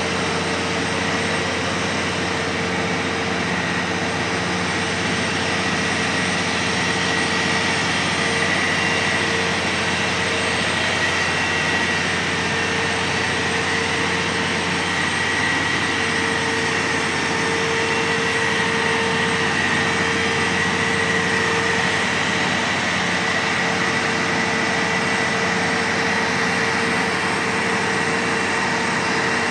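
Steady drone of large Manitowoc crawler cranes' diesel engines and hydraulic drives running during a heavy lift. A mid-pitched hum and a higher whine hold steady throughout.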